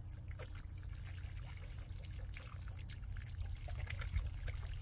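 Water trickling over a steady low rumble, with scattered small clicks.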